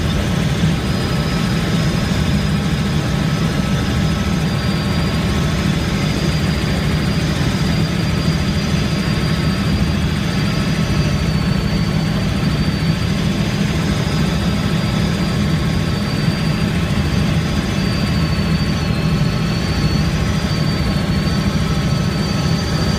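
Helicopter engine and rotor running steadily, with a low, constant drone and a thin high whine above it, heard from inside the cabin.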